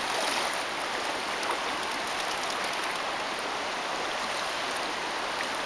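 Steady rushing of water from a river rapid.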